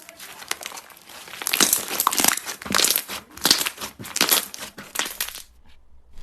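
Slime being squeezed and worked by hand, giving bursts of crackling, crinkly popping that stop about half a second before the end.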